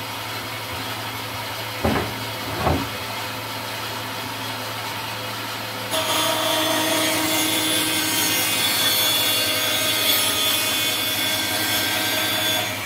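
Bandsaw running with a steady hum, with two short knocks about two seconds in. About six seconds in the blade bites into the wooden jig board being fed forward to cut its slot, and a louder sawing with a steady whine sets in.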